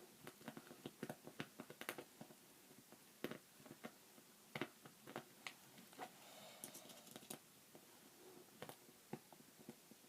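Faint, irregular clicks and taps of plastic Rubik's cube parts being handled and fitted.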